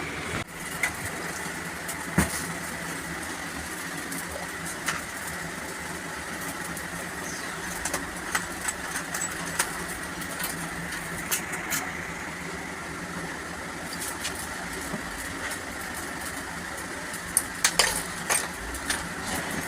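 An engine running steadily, with occasional sharp metallic clicks and taps, several close together near the end.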